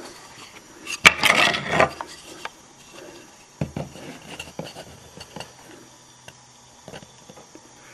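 Wooden chair rail molding pieces being handled and fitted together for a coped joint: a short scraping rub of wood on wood about a second in, then scattered light knocks and taps.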